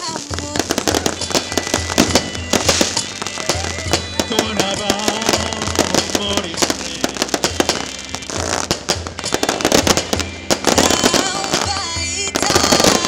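Fireworks bursting and crackling in rapid, dense bangs, with music playing underneath.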